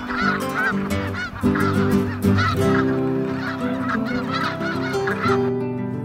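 Mixed flock of snow geese and Ross's geese honking: many short, overlapping calls several times a second, stopping shortly before the end.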